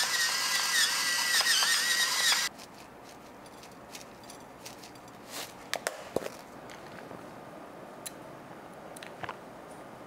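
Small electric spice grinder running for about two and a half seconds, with a wavering motor whine over the grinding, then stopping suddenly. A few light taps and clicks follow a few seconds later.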